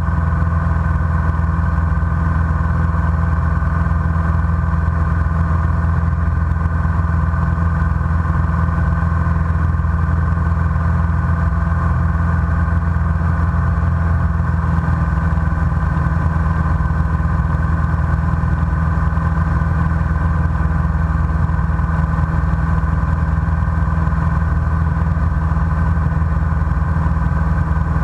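Light single-engine airplane's engine and propeller running steadily in flight, heard from inside the cockpit.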